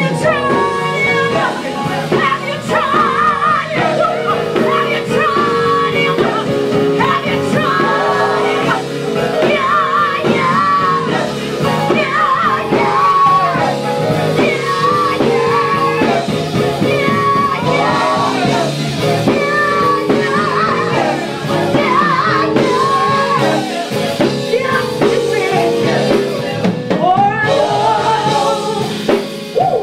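A live gospel song: a woman sings lead into a microphone, her voice wavering with vibrato, over held band chords.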